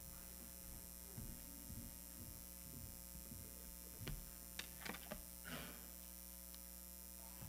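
Low, steady electrical mains hum. Around the middle come a few faint knocks and a brief rustle, as people settle into their seats and the reader reaches the lectern.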